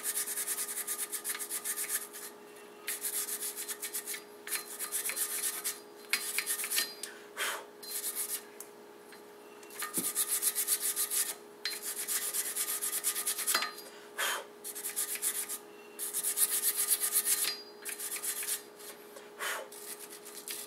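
Hand wire brush scrubbing rust and scale off a car's front wheel hub face and lip in quick back-and-forth strokes. The scrubbing comes in spells of a second or two with short pauses between them.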